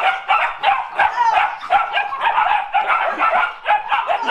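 A litter of black standard poodle puppies yipping and barking, many short high calls overlapping one another in quick succession.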